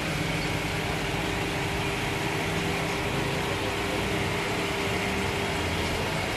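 Beef liver with tomatoes and green chillies sizzling steadily on a large flat iron tawa, over a steady low hum.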